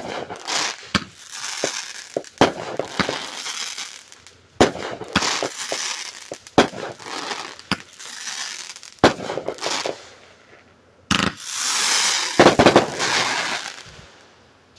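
Consumer aerial fireworks going off: a sharp bang about every two seconds, each followed by the hiss and crackle of the burst. Near the end comes a longer, louder crackling burst.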